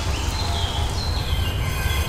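Woodland ambience: birds singing in short, falling whistled notes over a steady low rumble.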